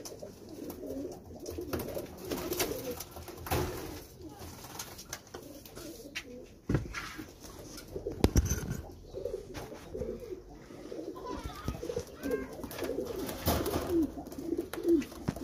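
Domestic pigeons cooing over and over, with a few sharp knocks about halfway through.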